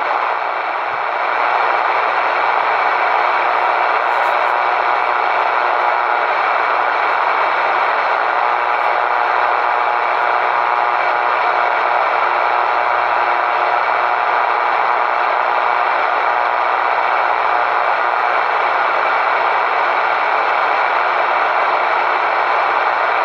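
Steady static hiss from a CB radio's speaker with the squelch open and no voice on the channel; the level dips briefly about a second in.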